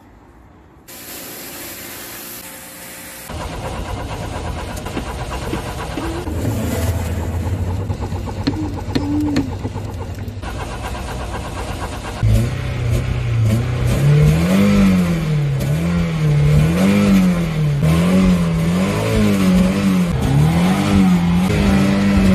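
Car engine running at a steady idle, then revved again and again, about once a second, the pitch climbing and falling with each blip of the throttle.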